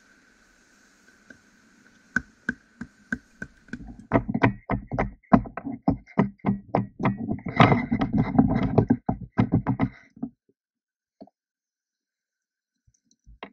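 A wooden stick used as a pestle, pounding down into a wooden cup. It starts as a few spaced knocks, then quickens into heavy knocks about three or four a second for some six seconds, and stops abruptly about ten seconds in.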